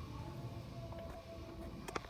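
Faint background music with a low steady hum, and a single small click near the end.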